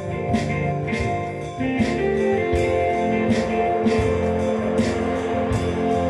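Instrumental music: guitar over sustained chords, with a regular percussion beat.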